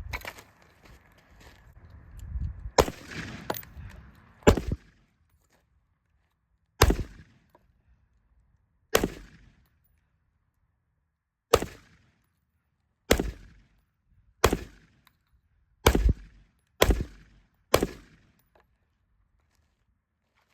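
AR pistol fired one shot at a time, about a dozen single shots at an unhurried, uneven pace of roughly one to two and a half seconds apart, each trailing off briefly.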